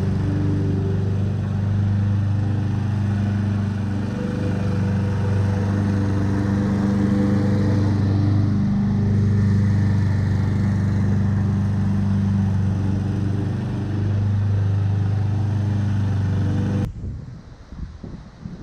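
Lawn mower engine running steadily under load, then cutting off suddenly near the end, leaving a much fainter, uneven rustle.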